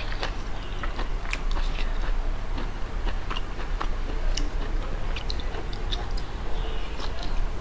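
A person chewing and biting seafood close to the microphone, with many short, irregular mouth clicks and smacks, over a steady low hum.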